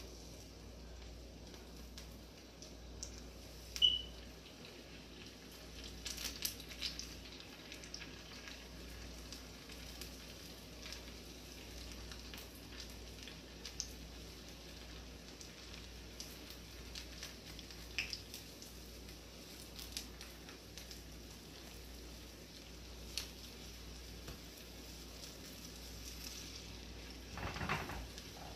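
Hot oil sizzling in a saucepan as balls of plantain puff-puff batter are dropped in by hand and deep-fry, with sharp pops and crackles here and there. A short, louder burst of noise comes near the end.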